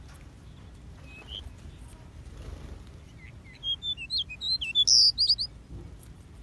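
Small aviary birds chirping: one short chirp about a second in, then a quick run of high twittering calls from about three seconds in, loudest near the five-second mark.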